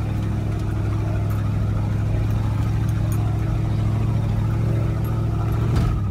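Toyota Land Cruiser 100's V8 engine running steadily at low revs, heard from inside the cabin as the truck crawls over a rocky dirt track, with a few light knocks from the stones and one short knock near the end.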